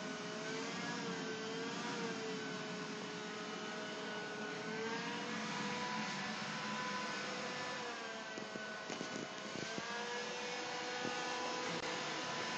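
iRobot Scooba 230 scrubbing robot running: a steady motor whine whose pitch wavers up and down, over an even hiss. A few light clicks come about eight to ten seconds in.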